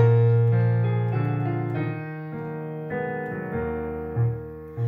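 Piano playing a short instrumental interlude between the refrain and the next verse of a hymn: chords over a low bass note, each struck and left to fade, with no singing.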